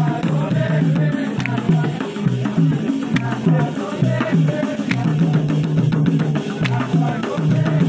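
Traditional drum troupe beating hand-held drums in a steady, repeating rhythm, with voices over the drumming.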